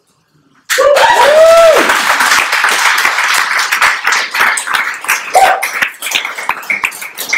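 Audience applause bursting in suddenly about three-quarters of a second in and running on as loud, dense clapping, with a few whooping cheers near the start.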